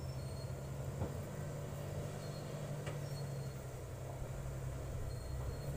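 Distant diesel engine of a loaded Mitsubishi Fuso Super Great logging truck, heard as a steady low hum as it heads down a steep dirt-road descent.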